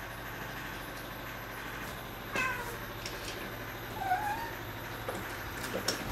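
A domestic cat meowing twice, with a short call about two seconds in and a second, wavering one about four seconds in, over a steady low hum.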